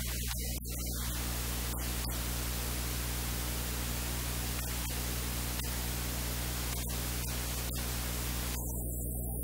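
Steady hiss with a low electrical hum underneath: recording noise with no clear event.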